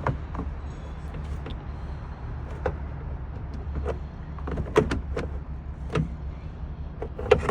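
Scattered plastic clicks and taps as a turn-signal bulb socket and its wiring are handled and fed back into the light housing, the sharpest about five seconds in and near the end, over a steady low hum.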